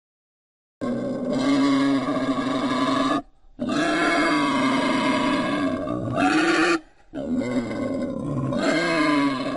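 Wild boar calls: three long, wavering, low-pitched calls of two to three seconds each, with short breaks between, starting after almost a second of silence.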